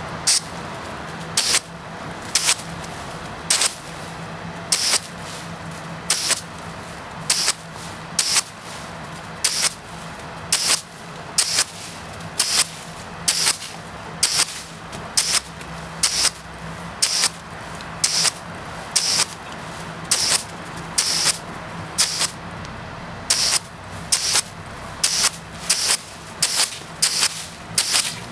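Garden water jet spurting in short hissing bursts, about one a second at uneven intervals, over a steady low hum.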